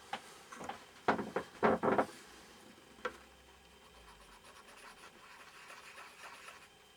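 Scratching and rubbing on the circuit board of a TV remote control as its dirty contact trace is cleaned. A few loud scrapes come in the first two seconds, a sharp click about three seconds in, then fainter rubbing.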